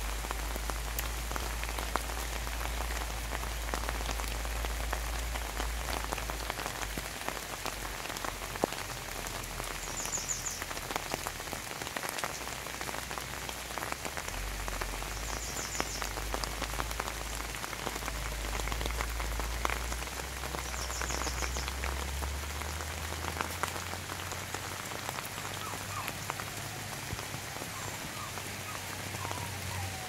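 Steady rain falling on leaves and wet ground, with many separate drops ticking. A short, high, trilling call repeats about every five seconds.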